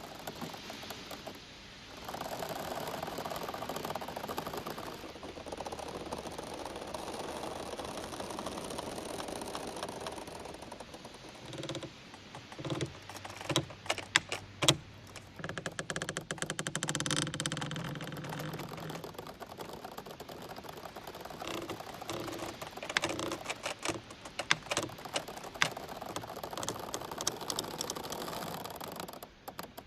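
Giant bamboo stems creaking and knocking against one another as they sway in the wind, over a steady rustle of leaves. Runs of quick clicks and squeaks come in two spells, with a longer drawn-out creak between them, near the middle.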